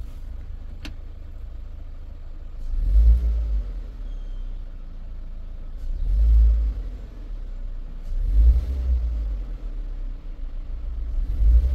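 Chevrolet Trax four-cylinder engine idling and revved briefly four times with short throttle blips, each one rising and falling back to idle. The blips are used to provoke an intermittent misfire, mostly in cylinder 2, that the scan tool logs under code P0300.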